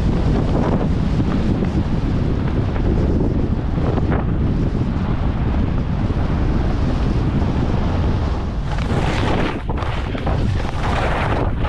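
Wind buffeting the microphone of a camera carried by a skier moving downhill: a steady low rushing. Brighter hiss of skis sliding over snow comes in for a few seconds near the end.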